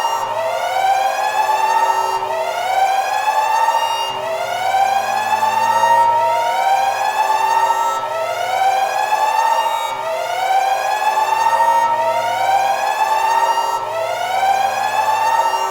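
Emergency alarm sounding a repeating rising whoop: each tone sweeps up in pitch over about two seconds, then starts again from the bottom right away.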